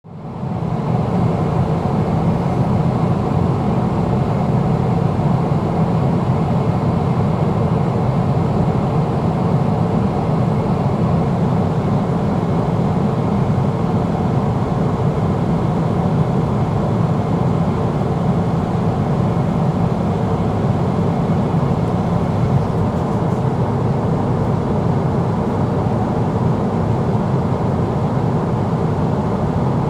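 Boeing 777-300ER cabin noise in flight: a steady low rumble and airflow rush with the drone of the GE90 engines, fading in over the first second.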